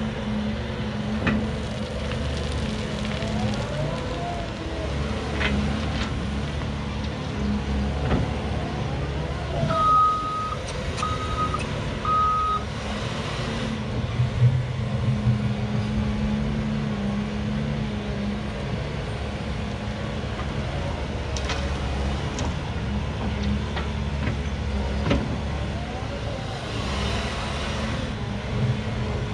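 Diesel engines of a Cat 336 hydraulic excavator and a Cat 730 articulated dump truck running steadily while the excavator digs and swings its loads. Three short high beeps come about ten seconds in.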